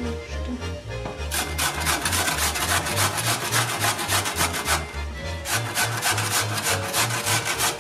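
Potato being grated on a stainless steel box grater, a quick run of rasping strokes at about four a second, starting about a second in with a short break partway through. Background music with a steady bass line plays underneath.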